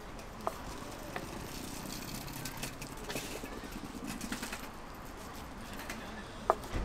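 Steady outdoor background noise with a few short, sharp clicks, about half a second in, about a second in, and a louder one near the end.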